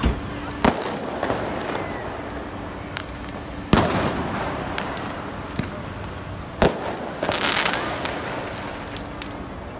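Fireworks and firecrackers going off: scattered sharp bangs, the loudest about four seconds in, a burst of crackling about seven and a half seconds in, and a run of smaller pops near the end.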